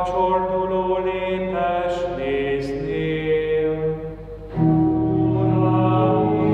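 Church organ playing slow, held chords that change every second or two, growing louder with a deep bass chord about four and a half seconds in.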